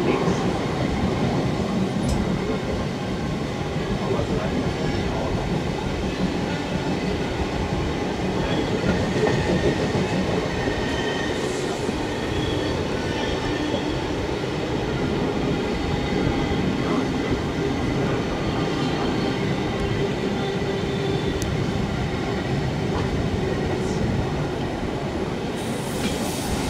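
Train running along the track: the steady rumble and rattle of wheels on rails, with a few sharp clicks and faint squealing tones from the running gear.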